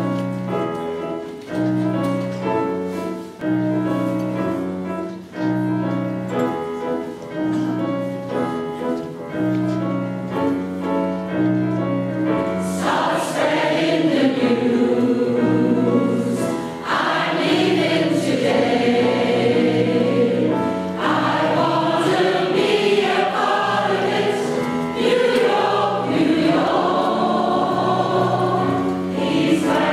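A grand piano plays a rhythmic introduction, then a large choir of older women comes in singing with the piano about 13 seconds in.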